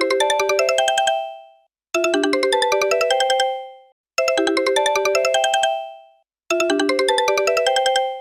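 Old mobile phone ringtone: a short electronic melody of quick notes, repeated about four times with a brief pause between each repeat.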